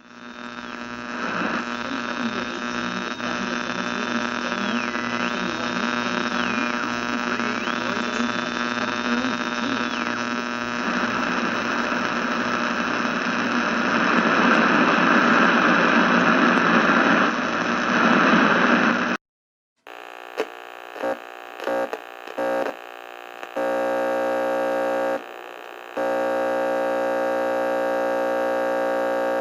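Antique radio static and tuning interference: a hissing, humming noise with a high whistle that drops in pitch and comes back several times, growing louder and rougher before cutting off. After a short gap, choppy stuttering bursts of buzzing interference give way to a steady electrical buzz that breaks off once and resumes.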